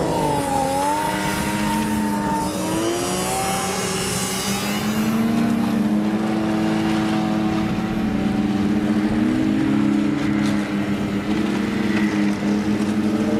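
Many snowmobile engines running as a long line of sleds rides slowly past. Several engine notes overlap, each rising and falling in pitch as the riders ease on and off the throttle.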